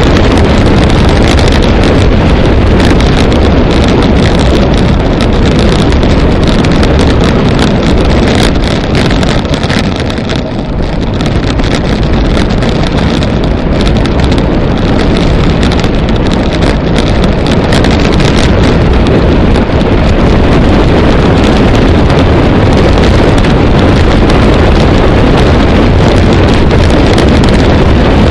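Loud, steady wind noise buffeting the camera microphone as a road bike descends at speed, easing briefly about ten seconds in.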